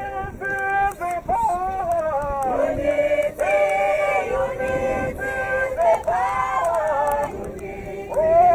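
A group of marchers singing a protest song together, in long held notes that rise and fall.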